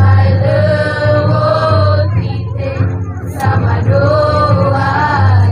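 Group of young women singing a traditional village song together in long held phrases, with a short break about two seconds in before the next phrase.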